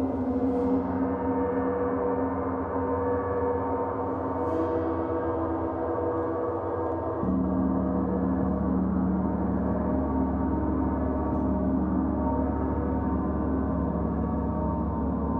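Paiste gongs struck with a soft mallet, giving a sustained, shimmering wash of many overlapping ringing tones. The lower gong, marked with the Mars symbol, is struck again about seven seconds in, shifting the low tones, and the large hanging gong is struck near the end.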